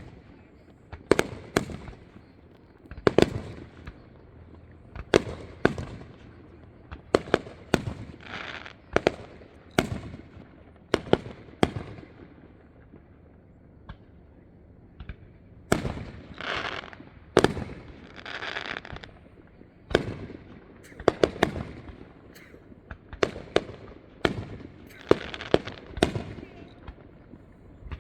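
Aerial fireworks show: a steady string of sharp booms about once a second, several trailed by crackling, with a few seconds' lull about halfway through.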